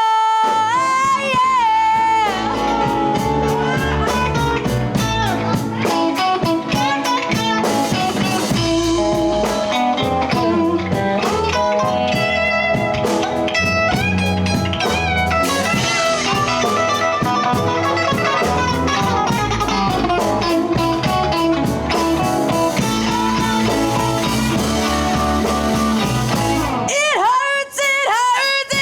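Live blues band playing, with electric guitar to the fore over bass and drums. The low end of the band drops out near the end.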